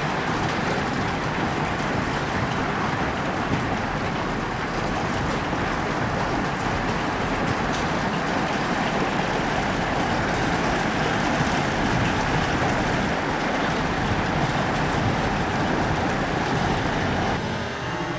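Heavy hail pelting down, a loud, steady, dense clatter of countless small stones striking. The sound changes character near the end.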